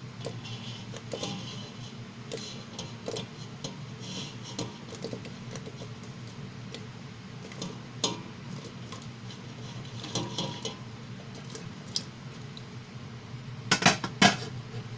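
Glutinous rice balls (bilo-bilo) dropped by hand, a few at a time, into a stainless-steel pot of boiling coconut milk: scattered light taps and clinks over a steady low hum. A sharper clatter of dishware comes near the end.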